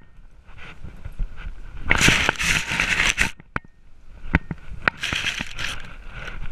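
Grass and fur scraping against a dog-worn GoPro as the dog rolls in the grass. Two long crackling, rustling bursts come about two and five seconds in, with sharp knocks of the camera housing between them.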